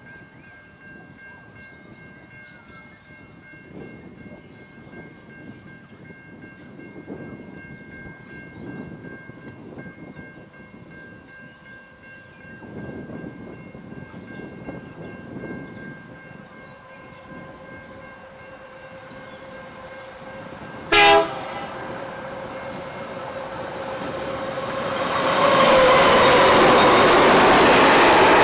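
A freight train hauled by SCT-class diesel locomotives approaching: a faint distant rumble slowly grows, with one short horn blast about three-quarters of the way through. Near the end the locomotives and the first wagons pass close by, loud and steady.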